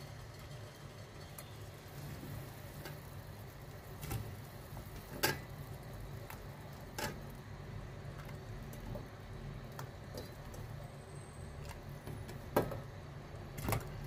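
Chunks of raw meat being put by hand into a stainless steel pot of hot water: a series of sharp knocks, the loudest about five seconds in and near the end, over a steady low hum.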